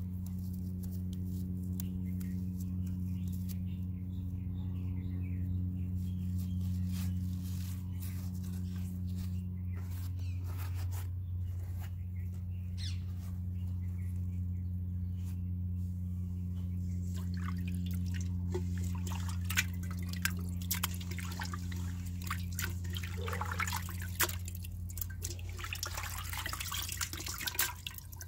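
Dye liquid dripping and trickling from wet, freshly unbound fabric into a steel pot, with small splashes and handling clicks that get busier near the end. A steady low hum runs underneath.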